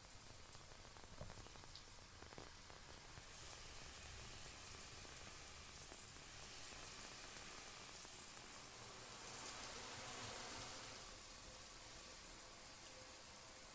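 Faint, steady patter and hiss of rain, swelling from a few seconds in and easing off near the end.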